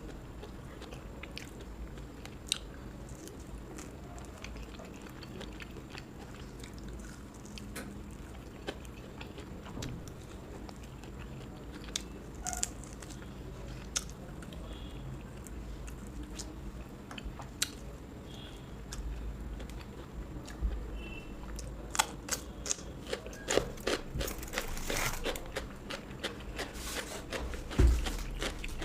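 A person chewing and biting food close to the microphone: soft chewing with scattered crisp crunches that grow dense in the last third, and a single low thump near the end.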